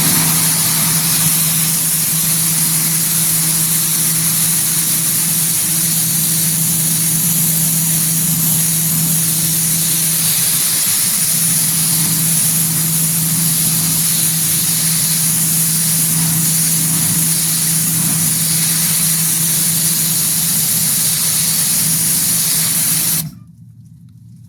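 Sun Joe SPX3500 electric pressure washer spraying through its 15-degree nozzle onto aluminum siding: a loud, steady hiss of the water jet over the steady hum of the motor and pump. It cuts off suddenly near the end.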